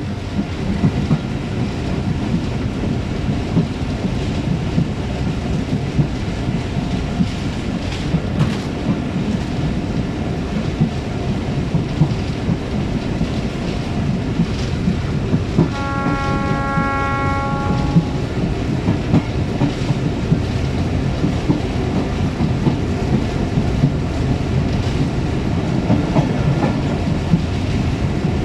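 A moving train's steady rumble with the clatter of wheels on the track. About halfway through, the train's horn sounds once for about two seconds.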